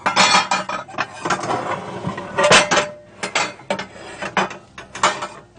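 Dishes, pans and utensils clattering as they are moved and set down on a kitchen counter: an irregular run of knocks and clinks, the loudest about two and a half seconds in.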